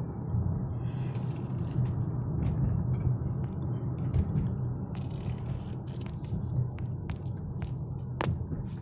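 Steady low rumble of the 2019 GMC Terrain Denali heard from inside its cabin, with a few light clicks in the second half.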